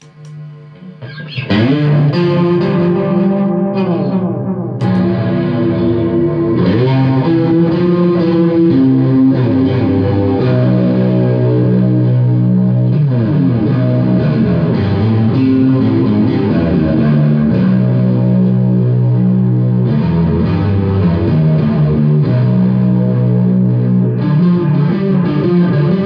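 Electric guitar played through a home-built Small Clone-style chorus pedal with Tube Screamer overdrive and a little boost, out of a Marshall 4x12 cabinet: driven, chorused chords with sliding notes, starting about a second and a half in.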